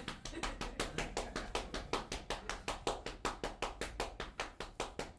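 Rapid, even slapping of a hand, about seven or eight slaps a second, the comic sound of a man masturbating in a stage sketch.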